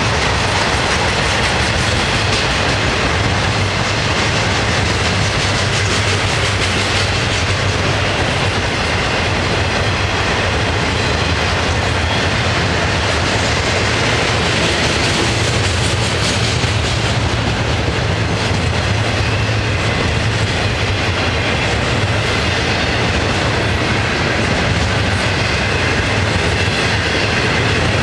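Florida East Coast Railway freight train's double-stack intermodal well cars rolling steadily past, steel wheels running on the rails with a continuous low, even noise.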